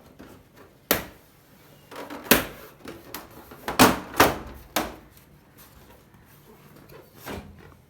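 Plastic back cover of a Samsung TU8000 TV being lifted off its frame: a string of about six sharp plastic knocks and clatters, the loudest a few seconds in.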